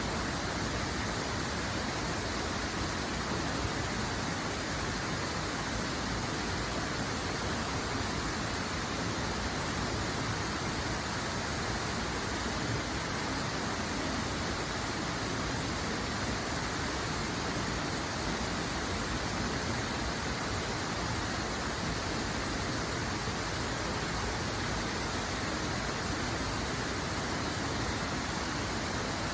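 Running water rushing steadily, an even unbroken hiss with no change in level.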